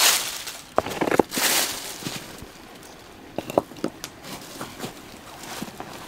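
Footsteps crunching through dry fallen leaves: a few loud crunches in the first two seconds, then lighter, scattered rustles and ticks.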